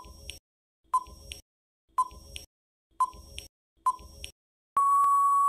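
Quiz countdown timer sound effect: five short beeps about a second apart, then one longer, steady beep near the end as the time runs out.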